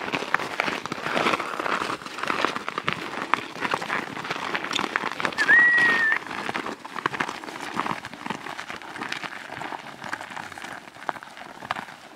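Several trekkers' boots crunching in snow, an irregular run of crisp steps. About five and a half seconds in, a short steady high-pitched tone, like a whistle, sounds for under a second and is the loudest thing.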